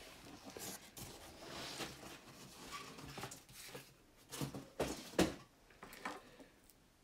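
Large cardboard shipping box being handled, rustling and scraping, then several dull thuds between about four and five seconds in as it is set down on the floor.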